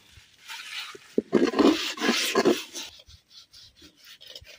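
A soot-blackened cooking pot being scrubbed by hand with leaves: a run of rough scraping strokes in the middle, then only faint scattered ticks.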